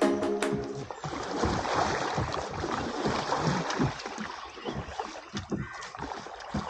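Water sloshing and lapping around a rowed boat as it moves through the water, with uneven low splashes.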